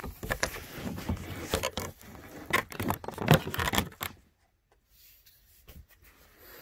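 Handling noise: a quick string of knocks, scrapes and rustles as the camera is moved and set down beside a plastic Beyblade stadium, stopping about four seconds in.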